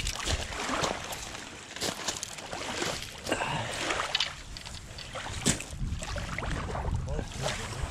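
Footsteps crunching on a loose shale-and-gravel beach in irregular steps, with lake water lapping at the shore behind.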